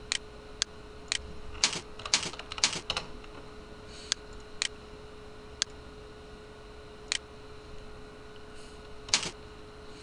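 Computer keyboard being typed on in short irregular spurts, about a dozen sharp key clicks bunched in the first three seconds and then more sparsely, over a faint steady hum.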